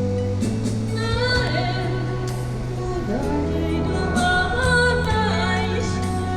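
Background music with a singing voice over sustained chords.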